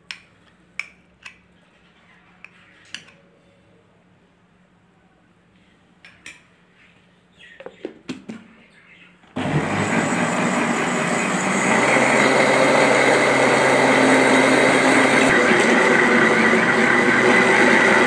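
Electric blender motor switching on about nine seconds in and running steadily, whipping eggs, sugar, oil and honey into a frothy cake batter. Before it starts there are a few light clicks and knocks as the jar and lid are handled.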